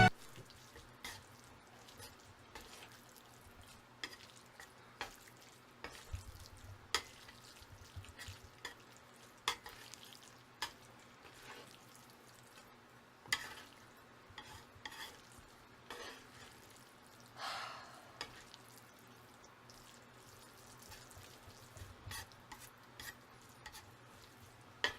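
Faint stirring of a big batch of instant jjajang noodles being mixed with their sauce, with scattered sharp clicks of the utensil against the bowl and short soft swishes of the noodles.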